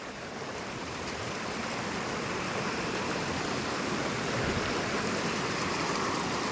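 Fast-flowing stream rushing, a steady wash of water that grows a little louder.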